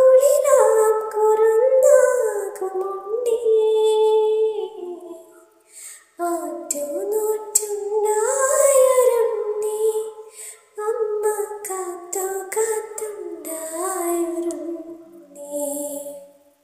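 A woman singing a Malayalam film song, a melody in phrases with two short breaks, ending just before the close.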